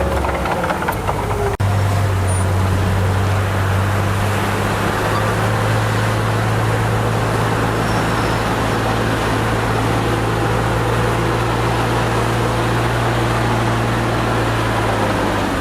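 Heavy diesel engine of earthmoving equipment running steadily with a deep, even drone. It breaks off abruptly about a second and a half in, then carries on at the same steady level.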